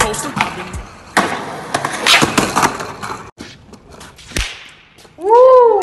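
Skateboard landing a jump down a set of concrete stairs, with a sharp smack about a second in and then the wheels rolling on concrete. Near the end, friends give a loud, drawn-out excited yell.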